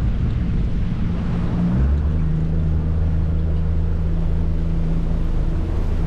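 Small open boat's motor running at low speed. About two seconds in its pitch drops a little and it settles into a steadier, lower note as the boat slows to idle speed.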